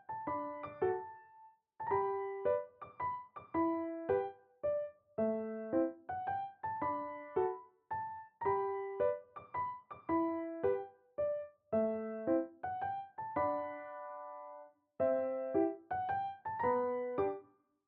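Background music: a gentle solo piano melody over repeating chord patterns, with one longer held chord near the end.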